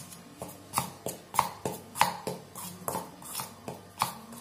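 Spoon stirring flour and baking powder in a stainless steel bowl, clinking and scraping against the metal about three times a second.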